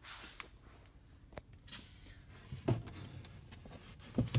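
Quiet handling noise: a sharp click about a second and a half in, and a few soft knocks and rustles later on.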